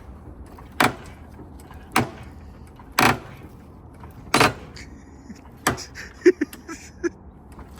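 Five loud thumps about a second apart against a Honda CRX's body, then a few lighter knocks near the end.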